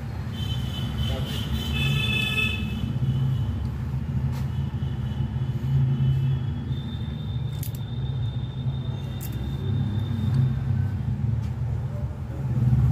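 Steady low rumble of road traffic. A cluster of high ringing tones sounds for a couple of seconds near the start, and a single high tone is heard in the middle, with a few faint clicks.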